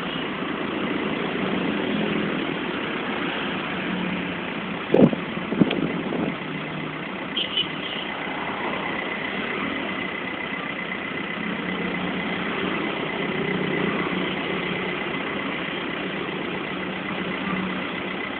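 Motor vehicle engine running steadily, with two sharp knocks about five seconds in and a thin steady high tone through the second half.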